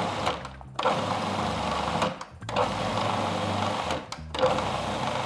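Food processor pulsing cauliflower into a fine, rice-like crumb: the motor and blade run in bursts of a second or so, with brief stops between them, about four times.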